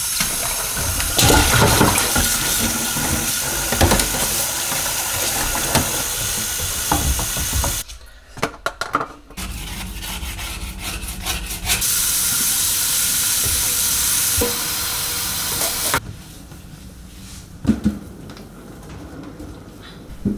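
Kitchen tap running and splashing into a plastic bowl in a stainless-steel sink as a dishwasher filter is rinsed, with a few knocks from the parts. The rushing stops briefly about eight seconds in, comes back, then gives way to quieter handling sounds with a couple of knocks near the end.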